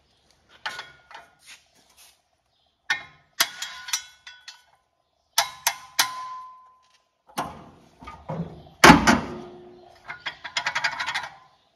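Hammer tapping on metal at the engine fan, working to knock the fan loose from the water-pump pulley: a dozen or so sharp metallic clanks at uneven intervals, one ringing on briefly about six seconds in, the loudest about nine seconds in, then a quick run of lighter clinks near the end.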